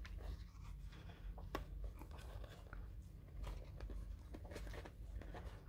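Faint rustling and scattered soft clicks from handling a baby Netherland Dwarf rabbit, over a low steady hum.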